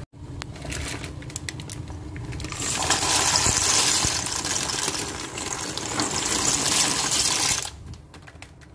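Water at a rolling boil in a stainless steel pot, a steady bubbling hiss. About three seconds in it gets louder and fuller as dry pasta is poured from a plastic bag into the boiling water, then settles back near the end.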